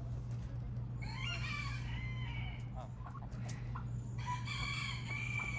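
Rooster crowing twice, each crow lasting about a second and a half.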